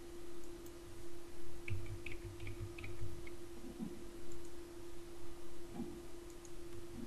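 A quick run of about half a dozen computer mouse clicks, with a few more single clicks later, over a steady low electrical hum.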